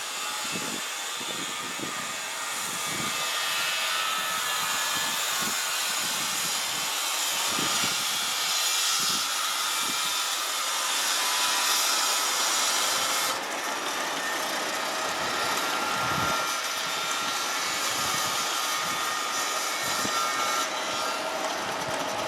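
Wind buffeting the microphone in low gusts, over a steady high hiss from a neighbour's power saw (buzzsaw) running in the distance; the highest part of the hiss drops back about thirteen seconds in.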